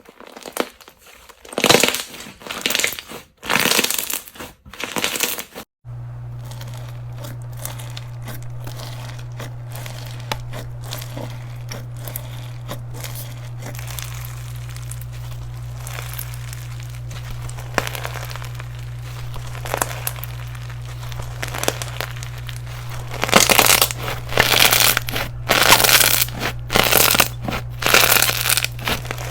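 Green slime being squeezed and pressed by hand, giving dense crackling, crunchy bursts. About six seconds in, a cut brings a steady low hum with only scattered pops, and the loud crackling bursts return near the end.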